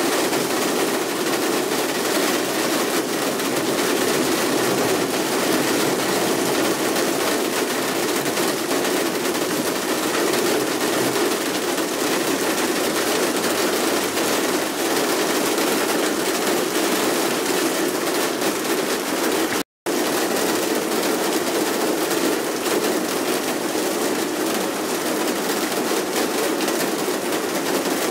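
Torrential rain pouring down on a road and pavement, a loud, steady, dense patter and hiss. The sound drops out for a split second about two-thirds of the way through.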